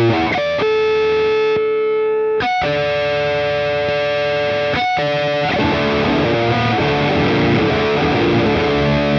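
Electric guitar played through an Electro-Harmonix Flatiron, a Rat-style distortion-fuzz pedal, giving heavily distorted tone. A few long sustained notes come first, then busier picked phrases from about halfway through.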